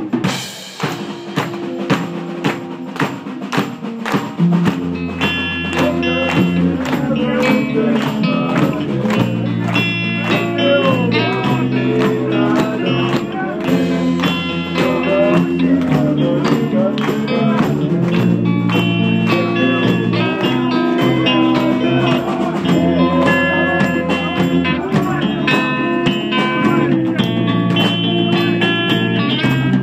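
Live rock band playing: drum kit alone for about the first four seconds, then electric guitar and a low bass line come in and carry on with the drums.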